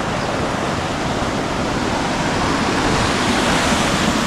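River water rushing, a steady even hiss with no break.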